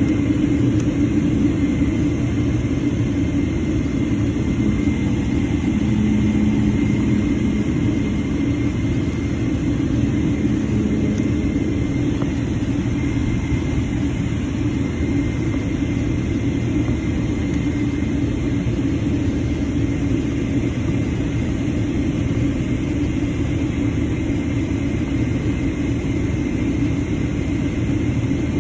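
Steady low drone of a Boeing 777-300ER's GE90 turbofan engines at idle thrust while taxiing, heard inside the cabin, with a faint steady high whine on top.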